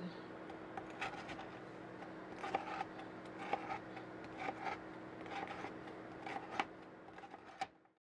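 Kitchen knife slicing a baked biscotti log on a plastic cutting board: short crunching cuts and taps of the blade on the board, roughly one a second, over a steady low hum.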